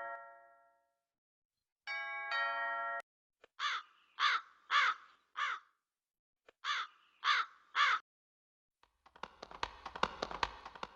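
A two-tone ding-dong doorbell chime, then a crow cawing, four caws and after a short pause three more, followed near the end by a rattling crash of many clinks over a low rumble.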